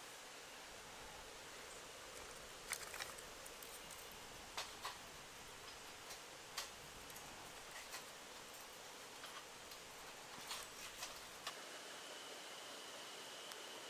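Feather sticks and split kindling catching fire, crackling with sparse, irregular pops.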